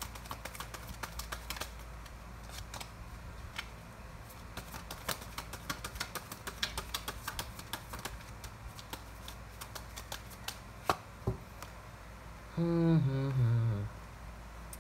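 Irregular light clicking and tapping, several clicks a second and uneven in rhythm. Near the end a short murmured voice, about a second long, falls in pitch.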